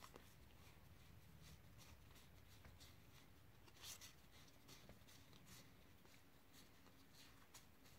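Faint, irregular flicks and clicks of SEGA Dinosaur King trading cards being thumbed through one by one in the hand, the sharpest flick a little before the middle.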